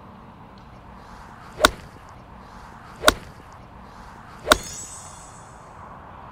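Golf iron striking balls: three sharp cracks about a second and a half apart, the last followed by a brief high shimmer.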